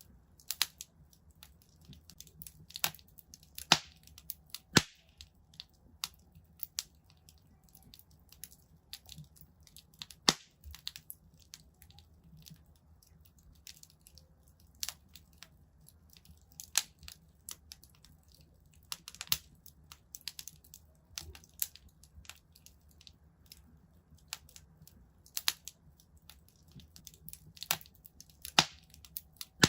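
Wood fire crackling in a fireplace: irregular sharp pops and snaps, some single and some in quick clusters, over a faint low rumble of the flames.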